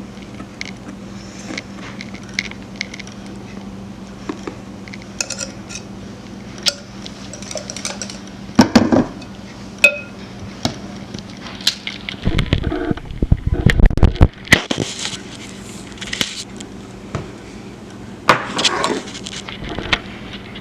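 Kitchen dishes and utensils clinking and knocking as they are handled, with a dense run of heavier knocks and rustling partway through. A steady low hum runs underneath.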